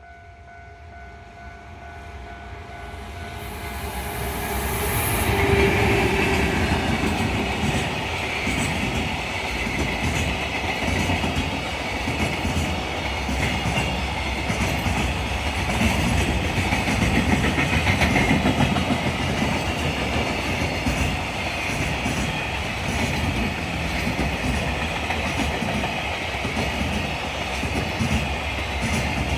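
A train approaches and passes through a level crossing, its wheels clattering over the rail joints. It swells over the first five seconds, then goes by loudly and steadily for the rest of the time.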